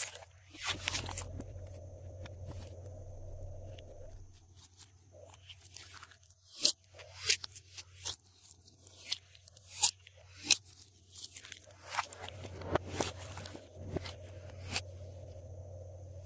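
Glossy slime being worked by hand, giving a scattered run of sharp crackling pops and crunches, several of them loud.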